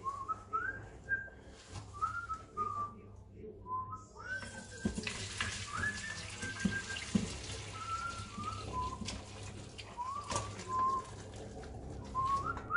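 A person whistling a tune, single notes gliding up and down. From about four seconds in, fish stock pours from the pressure cooker's inner pot through a plastic strainer into a saucepan with a steady rush of liquid, which stops after about ten seconds.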